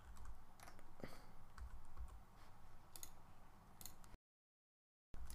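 A few faint computer keyboard and mouse clicks over a low hum, then about four seconds in the sound drops to dead silence for about a second where the screen recording is paused and cut.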